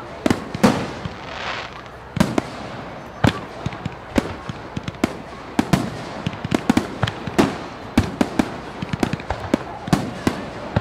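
Aerial firework shells bursting in sharp, irregular bangs, coming thicker and faster in the second half, with a hissing crackle about a second and a half in.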